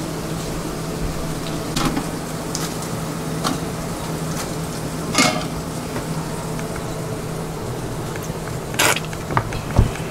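Steady low hum of kitchen equipment, broken by scattered clicks and a few louder clatters as a falafel wrap is assembled: squeeze bottles handled and falafel balls set down on the bread.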